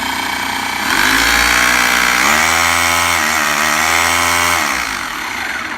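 Bosch GBH 2-26 rotary hammer running without load: its motor speeds up about a second in, climbs higher a little past two seconds, then winds down near the end.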